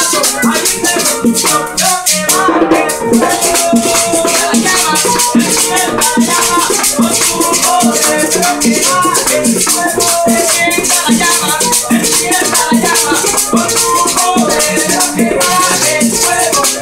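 Live acoustic music: a guitar played along with a hand-held percussion instrument keeping a fast, even rattling rhythm.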